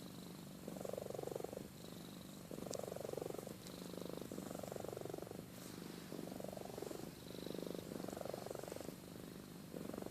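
Domestic cat purring steadily, the purr swelling louder and easing off in a regular rhythm with each breath.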